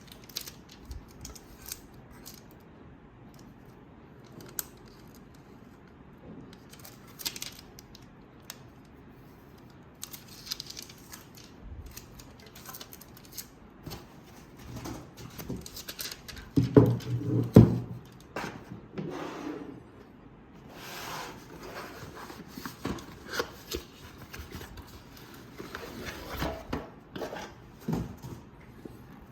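Handling of a box and its packaging while unboxing: scattered clicks and rustling or crinkling. A louder run of knocks and thuds comes about 17 seconds in.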